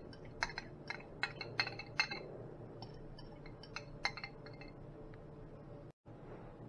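Metal fork clinking and scraping against ceramic bowls as seasoning paste is scraped out: a quick run of sharp clinks, thinning out after about two seconds and stopping after about four.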